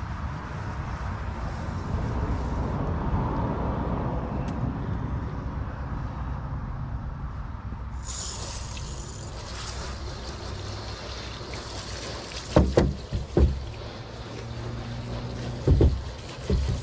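Low wind rumble on the microphone, then about eight seconds in a garden hose nozzle starts spraying water onto a plastic pickup bedliner with a steady hiss. A few heavy thumps come near the end.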